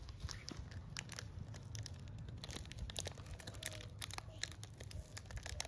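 Faint close handling noise: scattered small clicks and crinkling rustles over a low steady hum.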